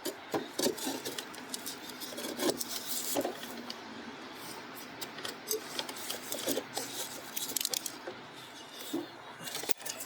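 Irregular rubbing and scraping with scattered light clicks and knocks: hand tools being worked against the mower's blade bolt and deck.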